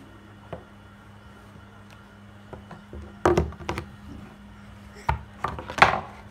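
Several sharp knocks of a mobile phone hitting a wooden bed headboard as a toddler bangs it. They come in two clusters from about three seconds in, and the loudest knock is near the end.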